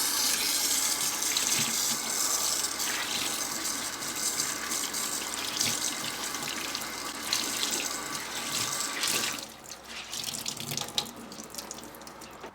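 Kitchen tap running steadily into a sink while a cleaning cloth is rinsed under it. The flow stops about three-quarters of the way through, leaving smaller splashes and drips.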